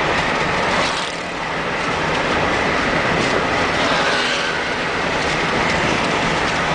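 Steady road noise inside a moving car: tyres on asphalt and the engine running at cruising speed, heard through the cabin.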